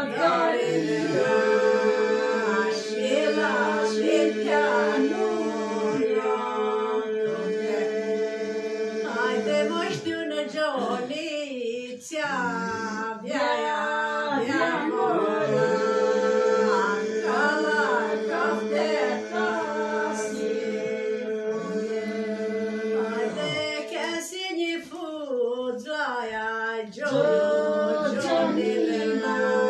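Aromanian folk song sung unaccompanied by men's and women's voices together, melody lines moving over a steady held drone. The drone breaks briefly about twelve and twenty-four seconds in, then resumes.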